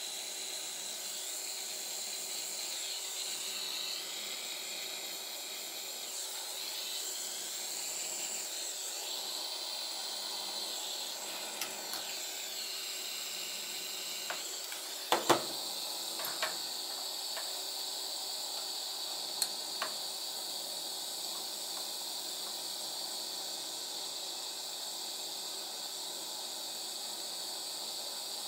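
Pen-style hot-air heating tool hissing steadily as it blows hot air onto the drone's plastic duct to soften and reshape it, with a few sharp clicks of the plastic frame being handled about halfway through.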